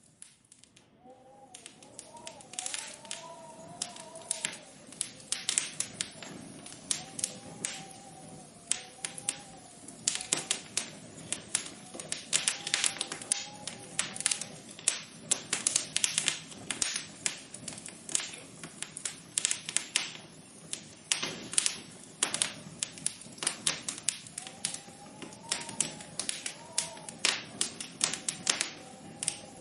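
Rapid, irregular tapping and clicking, several taps a second, with a faint wavering tone underneath.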